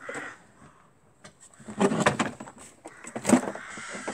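Wooden speaker board being pulled off the back of an organ cabinet, knocking and scraping against the frame in two loud bouts, the first about two seconds in and the second just past three.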